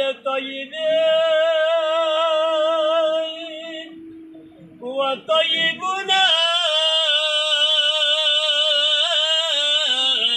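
A man's voice singing a Balti qasida, a devotional chant, in long held notes with a wavering vibrato. A first sustained note fades about four seconds in, and after a short breath a second long note is held almost to the end.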